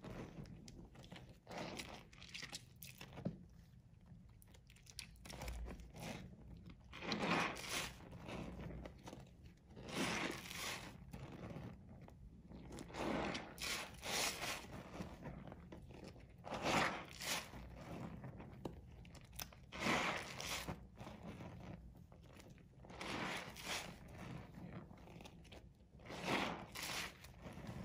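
Hands squeezing and crushing a water-soaked bar of soap in a basin of lathery water. Wet crunching comes in irregular bursts every second or two as the soft soap breaks apart in the fingers.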